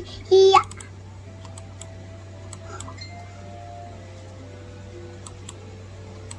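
A young child's short, loud vocal cry about half a second in, then a quiet room with a steady low hum and a few faint clicks as small fingers tap on a computer mouse.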